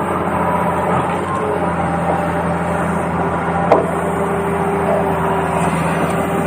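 Steady whine of a radio-controlled toy construction vehicle's motors, with one sharp click a little past the middle.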